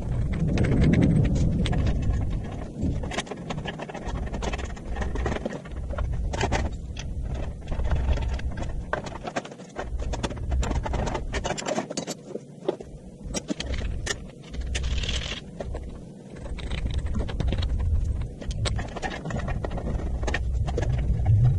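Sped-up time-lapse audio of workshop assembly work on a steel CNC plasma table: a dense jumble of quick clicks, clanks and scrapes over a low rumble.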